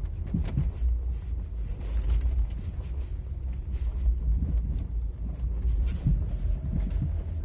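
Renault Laguna 2 driving over a rough, bumpy road: steady low road rumble with several dull knocks from the front suspension as the wheels hit the bumps. The knock is the sign of a faulty front shock absorber, which the owner first took most likely for a worn strut top mount.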